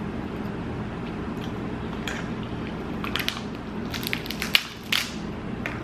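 Snow crab leg shells cracking and crunching as the meat is picked out, a run of sharp cracks and clicks that bunch together in the second half, over a steady low hum.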